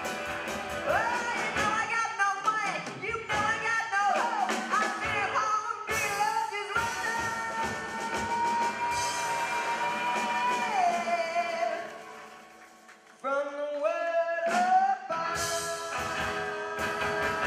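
A band of keyboard, acoustic guitar, accordion, upright double bass and drums playing live, with a sung vocal line. One long note is held through the middle. About twelve seconds in, the music thins out briefly before the voice and band come back in.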